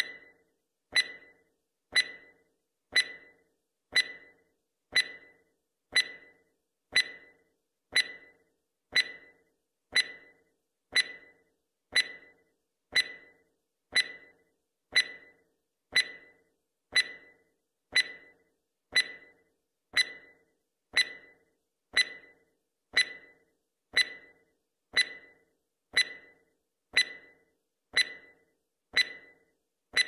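Countdown timer sound effect: a short, sharp clock tick once every second, each fading quickly.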